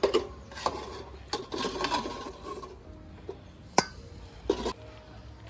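Kitchen utensil clattering and scraping against cookware: a few knocks, then a scrape, with a sharp click a little before four seconds in.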